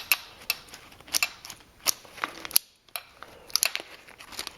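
Sharp, irregular clicks and light metallic clatter from a key being turned through the positions of a newly repaired Lexus RX350 ignition lock cylinder and switch assembly as it is tested.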